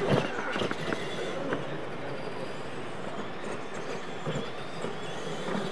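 Radio-controlled monster trucks running on a dirt track: a steady whir of electric motors, gearing and tyres on the dirt, with a few light knocks in the first second and a half.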